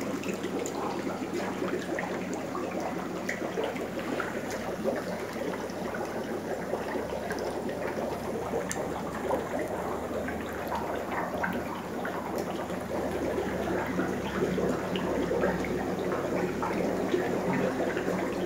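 Water trickling and splashing steadily in a shallow aquarium tank, with small scattered clicks and a steady low hum under it.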